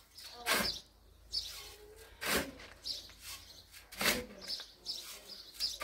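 A shovel scooping and turning a pile of sand and cement: three sharp scraping strokes about two seconds apart, with birds chirping faintly between them.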